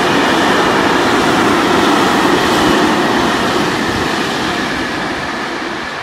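Freight train of covered hopper wagons rolling past at speed: a steady rumble and rattle of wheels on rail. It eases off in the last couple of seconds as the tail of the train draws away.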